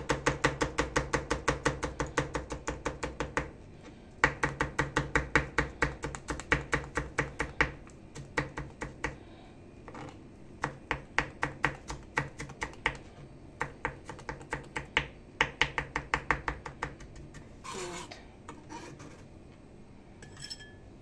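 A kitchen knife rapidly chopping a garlic clove on a plastic cutting mat: two long runs of quick taps, about seven a second, then slower, scattered taps. Near the end the knife makes a short scrape.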